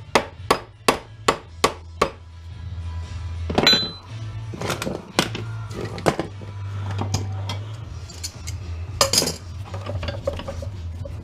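A quick run of about six metal-on-metal hammer blows on a transformer, roughly two a second, striking at a weld to break the transformer apart. Irregular metallic clinks and knocks follow, with a brief ringing hit a few seconds in and another cluster near the end. Background music with a steady bass plays underneath.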